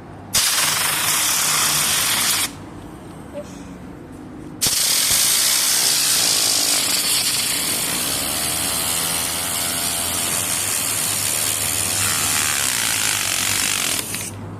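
Compressed air blasting from an air compressor's nozzle in two sudden bursts, a short one of about two seconds and a long one of about nine seconds, spinning a homemade LEGO fan. A wavering whir rises and falls under the hiss during the long burst.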